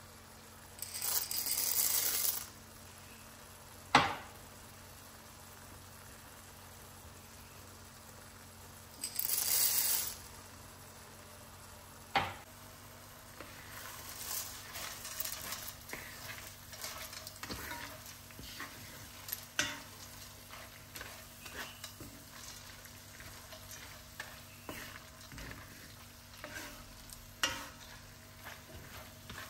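Dry short tube macaroni poured into a pot of simmering tomato-and-mince sauce in two pours, each a rushing rattle of about a second and a half, with a single sharp knock after each. Then a wooden spoon stirs the pasta through the sauce: irregular scraping and crackling over a low sizzle.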